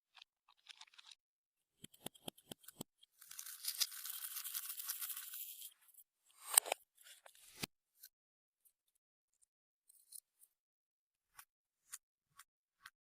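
Clear slime being worked by hand, giving scattered small sticky clicks and pops, with a longer crackling hiss from about three to six seconds in.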